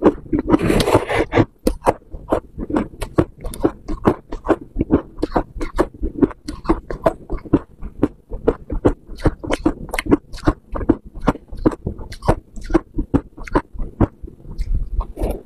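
Close-miked crunching of freezer frost being chewed: a quick, steady run of sharp crunches, with a longer, louder crunch about a second in.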